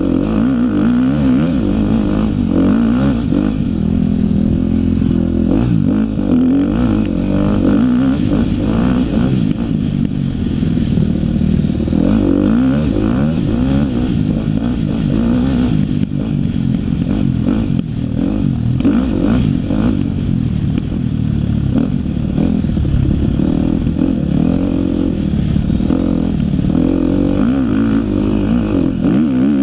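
A 2013 KTM 250 XC-F's single-cylinder four-stroke engine, revving up and down as the dirt bike is ridden hard along a trail, with occasional knocks and clatter from the bike over rough ground.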